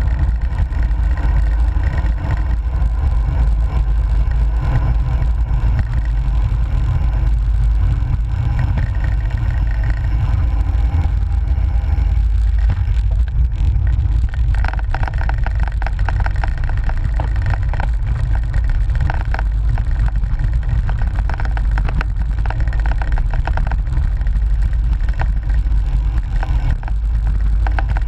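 Wind buffeting a handlebar-mounted GoPro's microphone while riding a cyclocross bike, a heavy steady rumble over tyre and road noise. From about halfway in, a spell of rapid rattling clicks, as from a rougher surface shaking the bike and mount.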